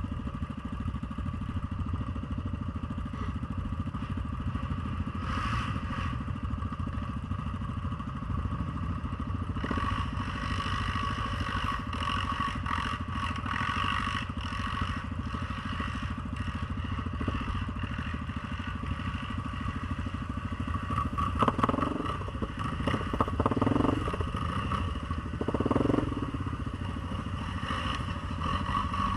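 ATV engine running steadily while riding, with a few brief louder surges about three quarters of the way through.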